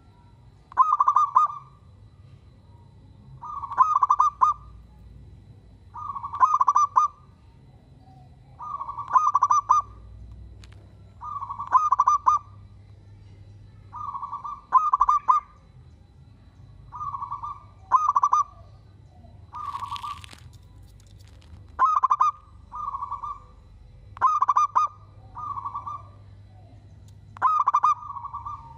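Zebra dove (perkutut) cooing its song at close range. It gives short stuttering phrases of quick notes every two to three seconds, about a dozen in all.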